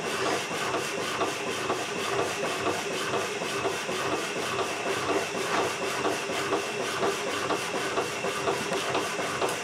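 Power hacksaw with a new blade cutting two-inch round bar stock: the electric motor running and the blade rasping back and forth through the metal in an even rhythm.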